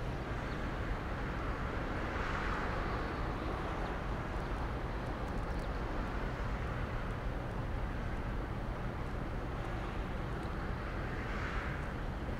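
A fishing boat's diesel engine running slowly, a steady low rumble under a constant hiss of harbour noise. Two soft swells of rushing noise rise and fall, about two seconds in and again near the end.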